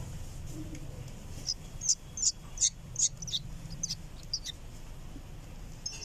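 Bulbul fledgling calling: about nine short, high chirps in quick succession, starting about a second and a half in, with one more just before the end.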